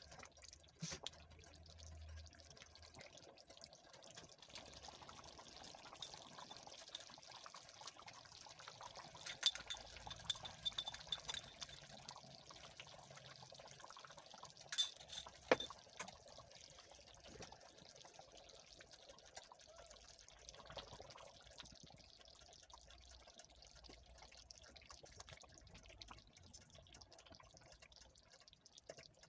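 Chicken stew sloshing and bubbling in a metal pot as it is stirred with a wooden spoon, with a few sharp knocks near the middle.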